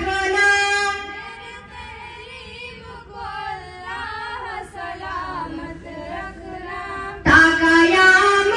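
Girls singing a prayer (dua) into a microphone, the voices holding long notes. The singing drops softer after about a second and comes back loud and full about seven seconds in.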